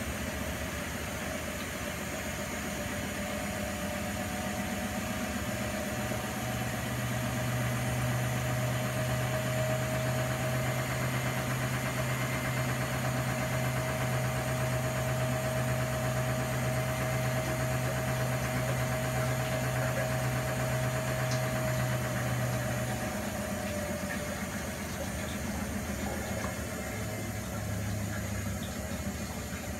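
Primus P6 commercial front-loading washing machine running a 95 °C whites boil wash. A steady motor hum with a thin whine above it comes in a few seconds in as the drum turns, and cuts out about three-quarters of the way through. A short burst of it returns near the end, over a constant machine noise.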